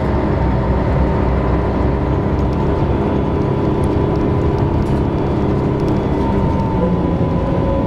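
Scania L113CRB bus heard from inside the passenger cabin while driving: its six-cylinder diesel runs with a steady rumble, and its ZF automatic gearbox whines steadily. Near the end a fresh whine begins to rise in pitch as the bus pulls.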